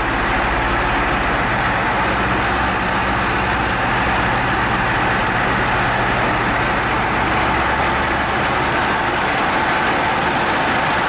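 Steady running noise of a slowly driving vehicle: a low engine hum under an even rush of road and air noise.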